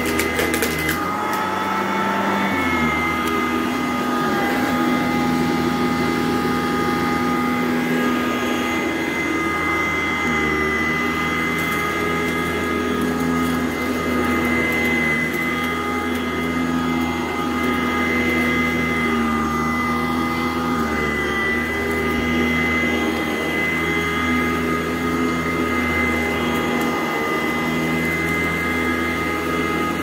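Sanitaire SC899 commercial upright vacuum cleaner running steadily on carpet, its motor whine holding an even pitch apart from a slight dip and recovery a couple of seconds in.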